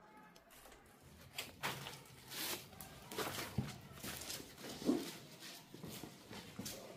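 Footsteps over a floor strewn with broken boards and debris: irregular crunches, scrapes and knocks, starting about a second and a half in.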